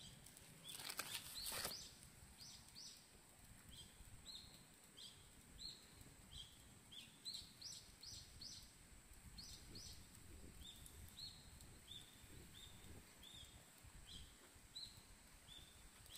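A small bird chirping over and over with short rising calls. A brief burst of noise about a second in is the loudest sound.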